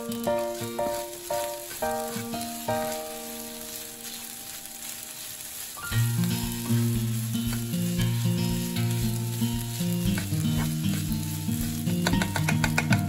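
Rice frying in an oiled frying pan, sizzling, as a metal ladle stirs and presses through it. Background music with held notes plays over it, heavier in the bass from about six seconds in.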